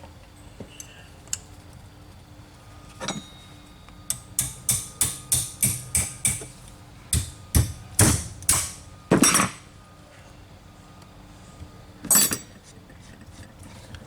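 Hand tools clicking and tapping against the metal of a Mercedes M100 mechanical fuel injection pump: a quick run of about eight light taps, then a few louder knocks and one more near the end.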